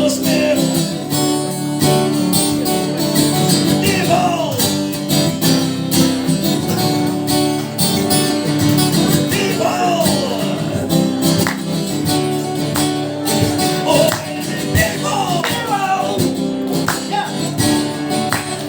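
Live band music: a strummed acoustic guitar with tambourine and other instruments playing an instrumental passage of a rock song.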